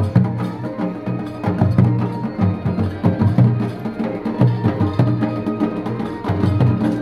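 Traditional folk-style music with a steady percussion beat.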